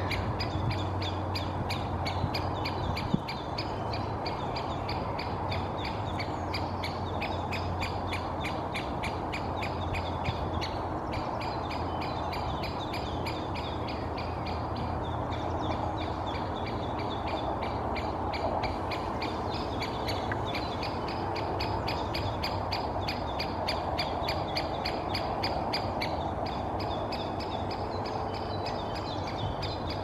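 Great spotted woodpecker calling incessantly: short, sharp, high-pitched calls repeated several times a second, over a steady low hum.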